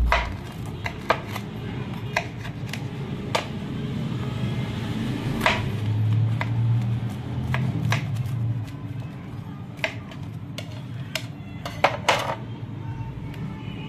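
Knife and fork cutting through the crisp, browned crust of a pan-fried stuffed flatbread on a ceramic plate: a run of sharp clicks and scrapes as the blade saws through and the cutlery knocks against the plate.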